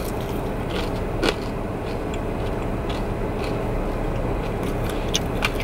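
A crispy fried chicken tender being bitten and chewed, with a few short crunches, the loudest about a second in and two more near the end. Under it runs the steady low hum of the car.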